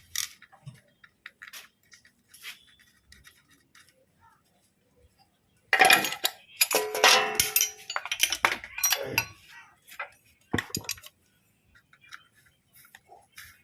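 Small metal parts and hand tools clinking and clattering as the motorcycle's clutch-cover bolts are fitted. Scattered light clicks, with a louder run of clattering and ringing metal in the middle.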